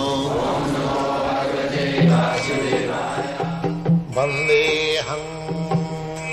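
Intro music: a chanted mantra over instrumental backing, which gives way about two seconds in to plucked string notes over a steady low drone.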